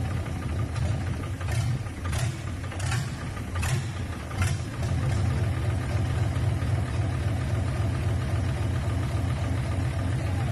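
10PD1 bus diesel engine running at a steady idle on a test stand. About five sharp clicks or knocks sound over it in the first half.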